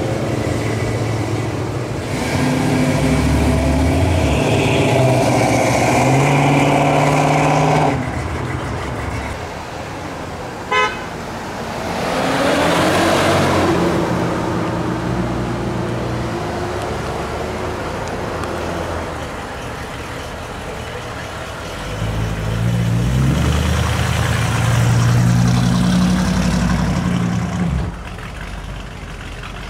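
Classic cars driving off one by one. A Plymouth Barracuda's engine runs loud as it pulls past, a short car-horn toot comes about eleven seconds in, and later a 1964 Chevrolet Impala's engine rises as it accelerates away, cutting off near the end.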